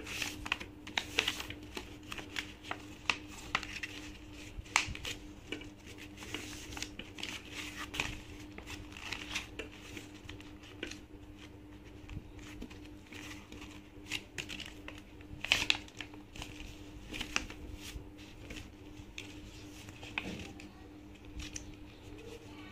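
A sheet of paper being folded and creased by hand: irregular short rustles and scrapes as fingers run along the folds to press them flat.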